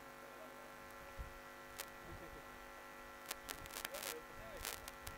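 Faint steady electrical hum on the commentary audio, with distant voices and a handful of sharp clicks, most of them clustered near the middle and end.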